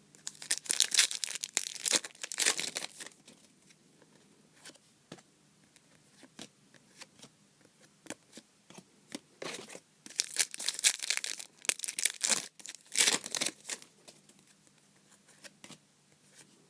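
Foil trading-card packs being torn open and their wrappers crinkled, in three or so loud rustling spells, with soft clicks of cards being handled in between.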